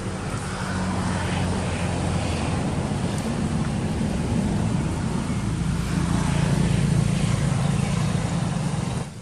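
A low, steady engine drone that cuts off abruptly just before the end.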